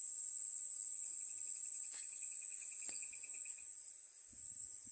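Steady, high-pitched chorus of insects such as crickets. About a second in, a second, lower trill joins for two or three seconds, then stops.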